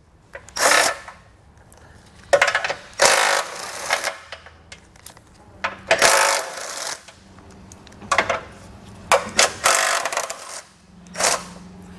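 Cordless power tool running in short bursts, about eight in all, as it backs out the 13 mm bumper-beam bolts.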